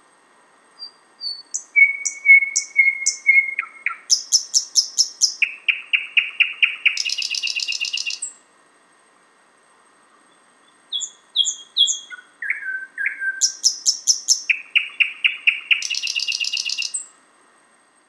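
Thrush nightingale singing: two song phrases with a pause of about three seconds between them. Each phrase is a string of short repeated notes that turns into a fast, dry rattle at the end.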